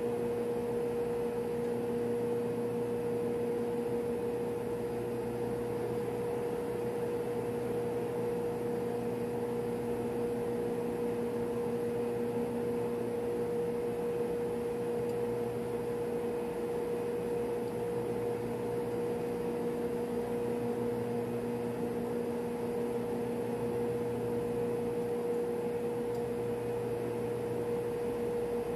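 Steady machinery drone of a ship's refrigeration plant room: a constant even rush with a clear mid-pitched hum and a weaker lower hum beneath it, unchanging throughout.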